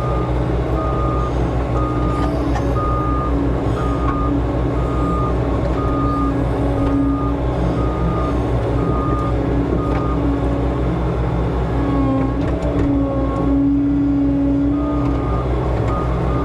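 Bobcat skid steer's diesel engine running steadily while reversing, its backup alarm beeping about once a second.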